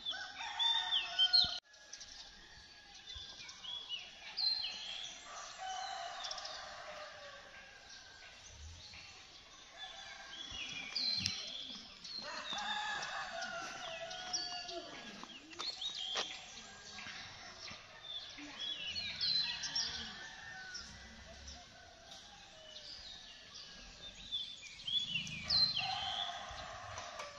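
Birds chirping and calling throughout, many short rising and falling calls overlapping one another.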